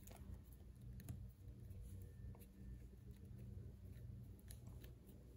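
Near silence: a low steady hum with a few faint clicks and soft handling noise of a plastic action figure having its cape put back on.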